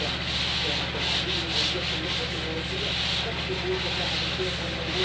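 Hand sanding of a wooden cupboard door panel: sandpaper rubbing across the board in quick back-and-forth strokes, a hiss that swells with each stroke. A steady low hum runs underneath.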